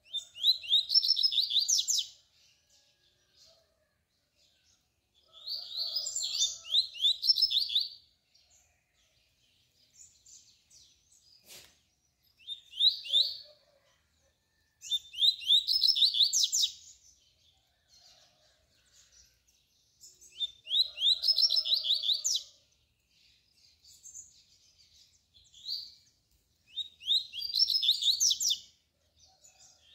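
Double-collared seedeater (coleiro) singing its 'tui-tui' song: six quick, high trilled phrases, each one to three seconds long, with pauses of a few seconds between them.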